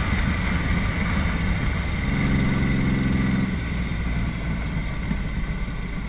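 Yamaha XS850 three-cylinder motorcycle engine running under way, with road and wind noise. A steadier pitched engine hum stands out for about a second and a half from roughly two seconds in.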